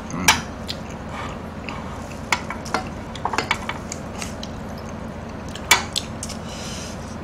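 Metal spoon and utensils clinking and scraping against a stainless steel tray as spicy stir-fried noodles are stirred and scooped. Scattered sharp clinks, with a louder one a little before the end.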